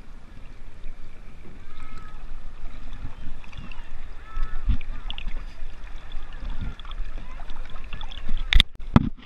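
River water lapping and sloshing right at a camera held at the surface, with faint distant voices of paddlers. Two sharp knocks come near the end.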